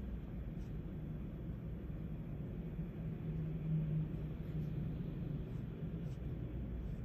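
Steady low background hum and rumble, with a low drone swelling briefly about four seconds in, and a few faint ticks of an ink pen touching paper.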